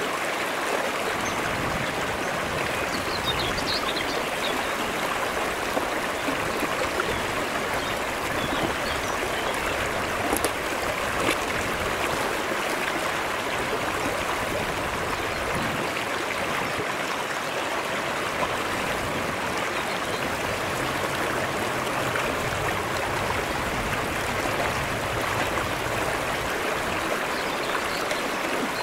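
Shallow mountain stream running over flat rock shelves: a steady rushing and trickling of water.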